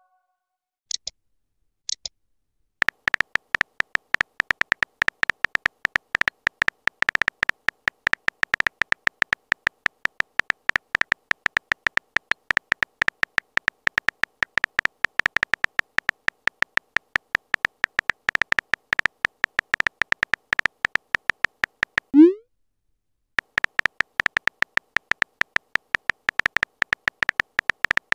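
Texting-story app's simulated keyboard typing: a fast, dense run of short electronic beeping clicks, one per keystroke. About three-quarters through the typing stops for a single short rising blip, then the clicking starts again.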